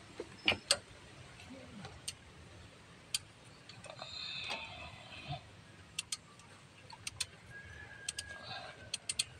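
Scattered sharp metallic clicks and taps of hand tools and bolts being worked while refitting a starter motor under a vehicle, about a dozen at uneven intervals, some in quick pairs, with a brief scraping sound near the middle.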